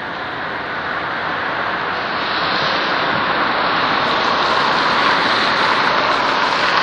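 Rushing floodwater: a steady, even rush of water that grows gradually louder.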